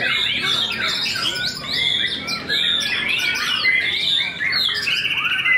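White-rumped shamas (murai batu) singing, several songs overlapping into a dense run of sliding whistles and harsh notes. A fast buzzy rattle comes near the end.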